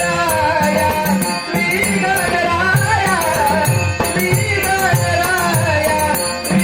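Male voice singing a Ganesh stavan, a devotional hymn, in long wavering melodic phrases, with a steady held drone under it. A drum with low strokes that drop in pitch keeps a repeating rhythm, and small hand cymbals clash on the beat.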